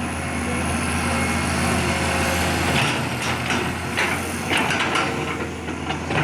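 Excavator engine running steadily, with a series of sharp clanks and knocks in the second half.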